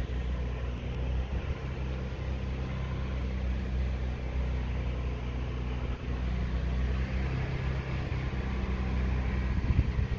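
Engine running steadily at an even speed, a low hum with a light hiss over it.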